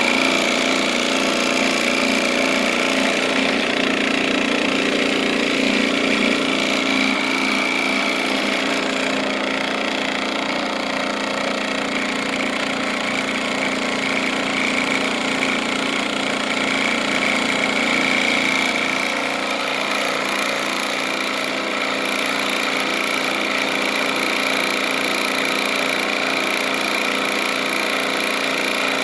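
Homemade vibratory particle separator running steadily: its vibration motor shakes the metal screen with a constant mechanical buzz and rattle as wood shavings bounce across it.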